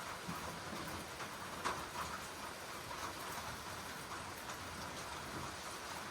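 Steady rain pattering down, with a sharper single tick about a second and a half in.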